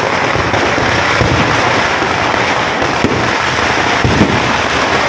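Festival fireworks going off in a dense, continuous crackle of bursting firecrackers, with two sharper bangs standing out about three and four seconds in.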